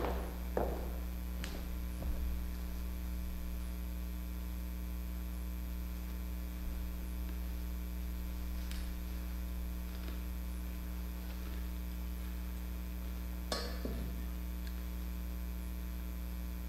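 Steady electrical mains hum, with a few faint clicks and one clearer knock about 13 seconds in.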